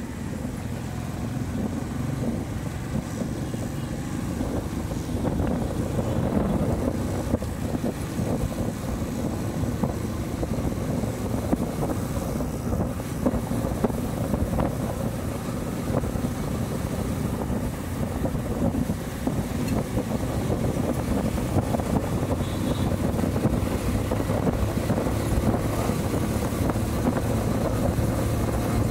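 Motorcycle engine running steadily as the bike is ridden along a road, heard from the rider's seat, with wind buffeting the microphone.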